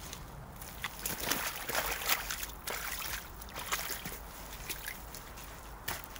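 Footsteps in leather boots squelching and sloshing through thick mud and a muddy puddle: an uneven series of wet steps and splashes, busiest between about one and two and a half seconds in.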